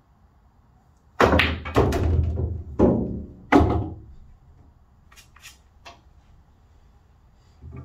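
A pool shot on a slate table: about a second in, a sharp clack, then a quick run of ball-on-ball and cushion knocks, with a low rumble under them as a ball drops into a pocket and rolls away inside the table. Fainter clicks follow as the balls come to rest, and there is a small knock near the end.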